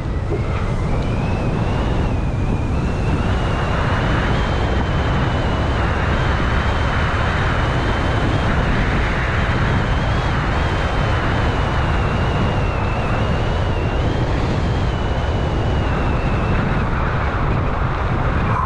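Wind rushing over the microphone while moving fast downhill: a steady loud rumble, with a thin high whine that wavers slowly in pitch throughout.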